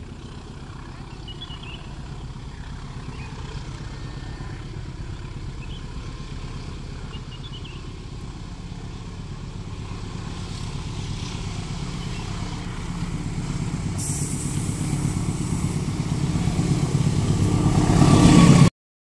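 Diesel locomotive of a passenger train approaching on the track, its engine hum growing steadily louder. In the last few seconds the hiss of wheels on rail joins in as it draws close, then the sound cuts off abruptly just before the end. Faint bird chirps are heard early on.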